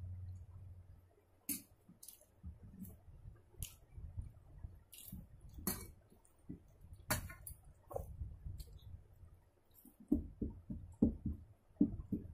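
Fingers mixing rice and curry on a stainless steel plate, with scattered light clinks and clicks of hand and metal. Near the end comes a run of quick, wet chewing and lip-smacking sounds.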